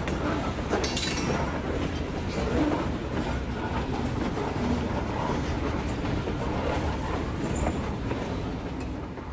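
N scale model trains of double-stack well cars rolling past on the layout track: a steady clickety-clack rattle of small wheels on rail, fading away near the end.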